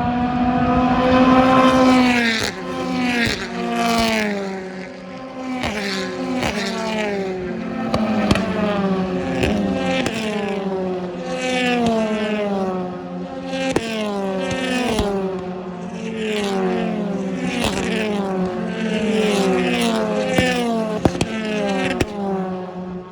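A pack of BTCC touring cars, 2.0-litre turbocharged four-cylinders, running at high revs and passing close by one after another. Each engine note drops in pitch as a car goes past and the next one comes in higher, roughly once a second.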